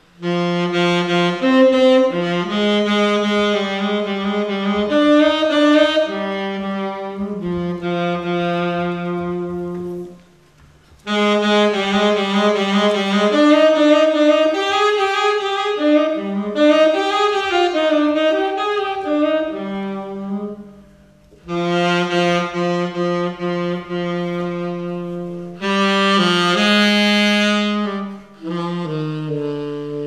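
A saxophone plays a solo melody in long phrases of moving notes, with short pauses between them.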